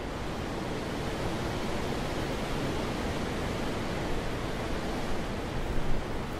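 Wind blowing in a steady, full rush that swells gently through the middle, with one brief louder buffet near the end.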